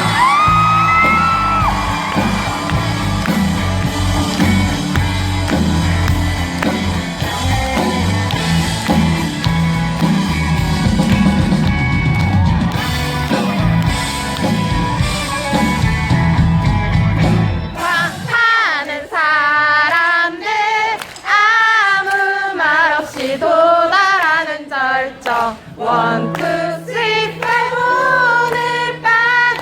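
Live pop-rock band playing loudly with drums and bass. About two-thirds of the way through the drums and bass drop out and the singing carries on over a sparse accompaniment.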